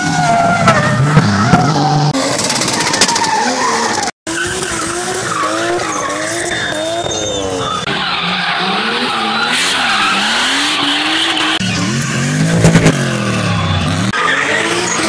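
Drift car engines revving up and down hard as the cars slide sideways, with tyres skidding and squealing. The sound changes abruptly at several cuts between clips, with a brief dropout about four seconds in.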